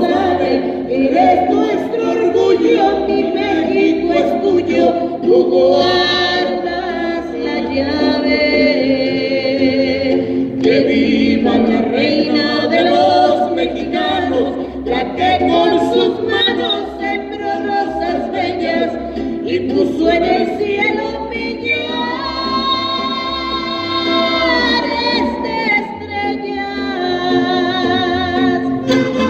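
A woman singing solo into a microphone, amplified, holding long notes with a wide vibrato.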